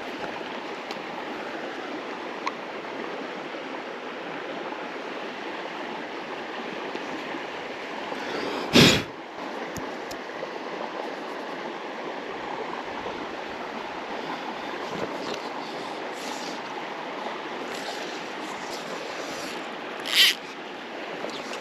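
Creek water running steadily over a riffle, with two short loud noises about 9 and 20 seconds in.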